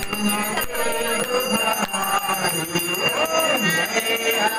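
Voices singing an aarti together, with a hand bell ringing steadily over them.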